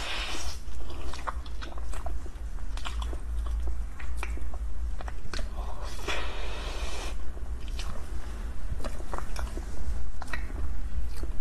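Close-miked biting and chewing of a frozen mango dessert with an icy shell: sharp crunches and crackles, with longer stretches of crunching at the start and about six seconds in. A steady low hum lies underneath.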